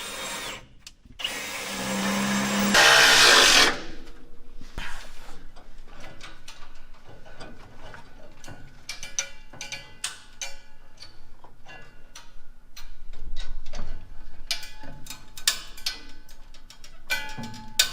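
Power drill running and drilling into the baler's steel chamber for liner mounting holes, loudest about three seconds in. Then many short clicks and clanks of tools and hardware as the liner is fastened.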